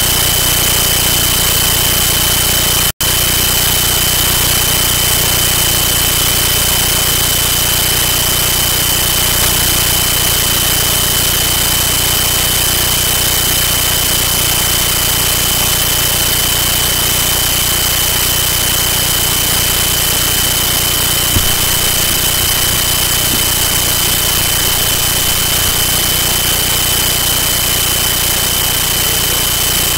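Loud steady hiss of static with a thin, steady high whine, unchanging throughout; it cuts out for an instant about three seconds in.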